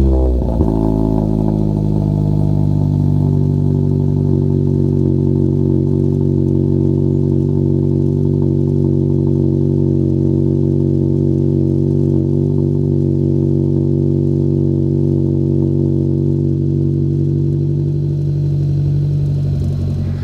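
2012 Hyundai Veloster's 1.6-litre four-cylinder engine idling steadily through newly fitted aftermarket headers, heard at the centre-exit exhaust tips. It settles from a start-up flare into the steady idle within the first second.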